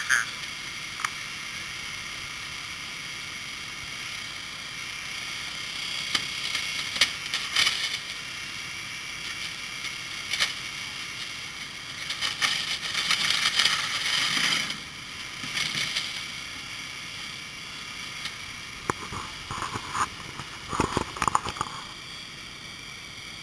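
Irregular crackling and crunching of metal and glass as rescue crews work the door of a crashed pickup with extrication tools, loudest from about 12 to 15 seconds in, over a steady hiss.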